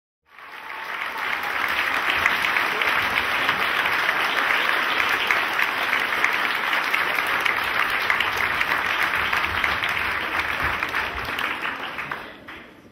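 Audience applauding: a dense, steady clapping that sets in at once and dies away near the end.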